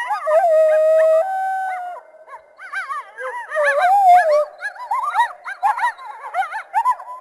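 A group of North American coyotes howling and yipping together. Several held howls come in the first two seconds, then a crowded chorus of short, quick rising-and-falling yips overlapping one another.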